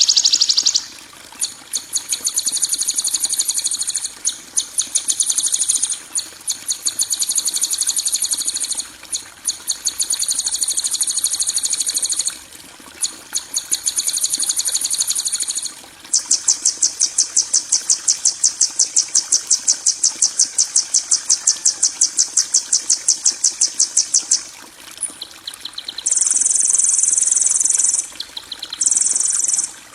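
Songbird-training 'kasaran' masteran recording: loud, high-pitched, rapidly pulsing trills in phrases of a few seconds, separated by short gaps, with one long unbroken trill of about eight seconds midway.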